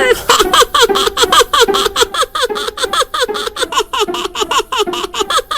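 A cartoon child's voice hiccupping over and over in a fast, even run, about five hiccups a second, each with a short upward-hooked squeak of pitch.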